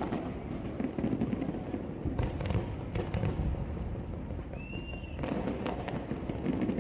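Aerial fireworks exploding in a string of sharp bangs and crackles over a low rumble, with a short high whistle a little past the middle.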